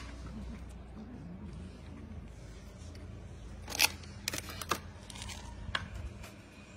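Cats eating dry kibble and wet food from plastic trays: crunching with a few sharp clicks, the loudest a little under four seconds in, over a steady low hum.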